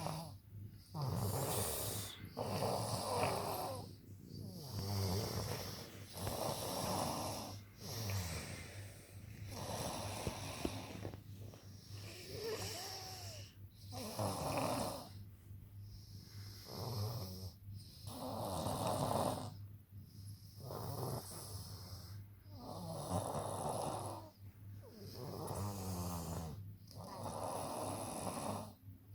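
Snoring in a steady, regular rhythm: a rough, noisy snore roughly every two seconds, with breathy hiss between snores.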